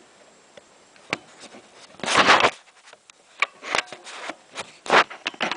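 Close handling noise: irregular clicks, knocks and scraping rubs, with a louder rasping rub about two seconds in, as the camera is adjusted where it sits.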